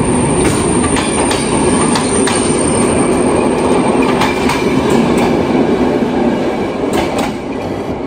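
BDZ passenger train running close by as it pulls out of the station, the wheels knocking now and then over rail joints. The noise eases a little about seven seconds in.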